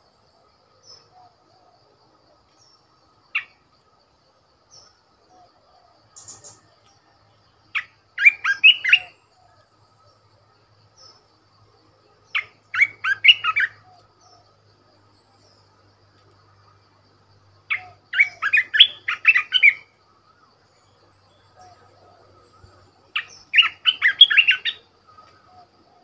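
Bulbul (merbah belukar) singing short phrases of quick notes, four phrases about five seconds apart, after a single note.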